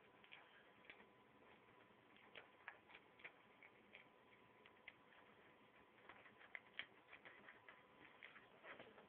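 Faint, irregular clicks of plastic Lego pieces being handled and pressed together, coming a little more often in the second half.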